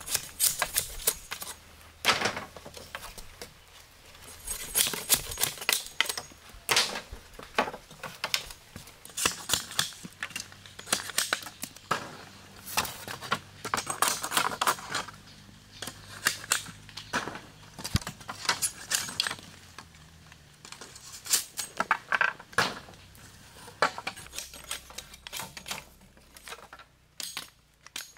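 An irregular series of light knocks and clicks, some coming in quick clusters, the clatter of hand work with hard objects.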